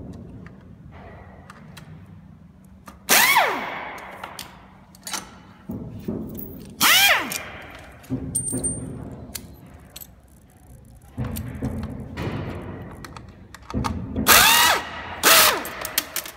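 Handheld electric screwdriver working screws on a massage chair's back roller assembly in four short bursts, each a whir that spins up and then winds down in pitch, about 3, 7, 14 and 15 seconds in. Small clicks and knocks of handling the plastic parts come in between.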